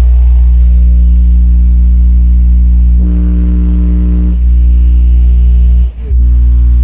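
Brewog Audio sound system blasting a very loud, steady low bass drone. The tone pattern shifts for about a second and a half midway, and the sound cuts out briefly twice near the end.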